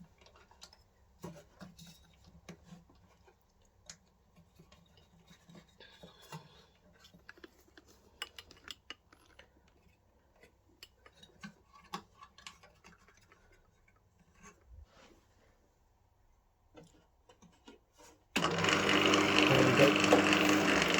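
Faint clicks and knocks of hands working on a DeWalt DW100 bench bandsaw. Near the end its motor switches on and starts running loud and steady at once, with a hum of several steady tones, driving the side disc sander now that the motor has been shifted over.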